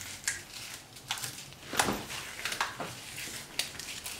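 Vanilla wafer cookies crushed in a hand into crumbs and sprinkled over the pudding: irregular dry crackles, the loudest about two seconds in.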